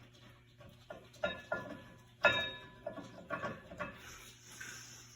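Metal clinks and knocks from brake parts and tools being handled and fitted, several short strikes, the loudest one a little over two seconds in with a brief ringing.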